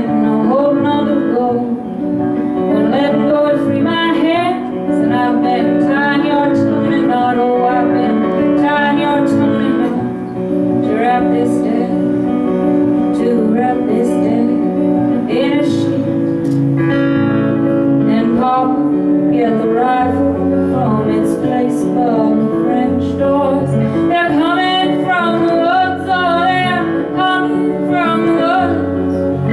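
Live folk song: a woman singing over plucked and strummed acoustic guitar.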